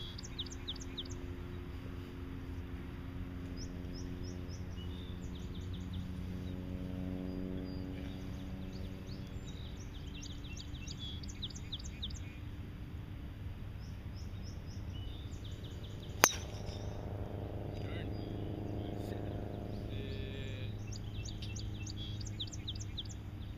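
A single sharp crack of a golf driver striking a teed ball, about two-thirds of the way through. Birds chirp in quick runs throughout, over a steady low hum.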